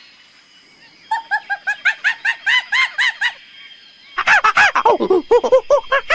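Macaque giving rapid runs of short, high alarm calls, each rising and falling in pitch: a first run of about a dozen, then a louder second run starting about four seconds in.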